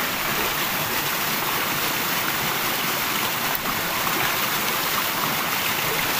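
Running water, an even steady rush.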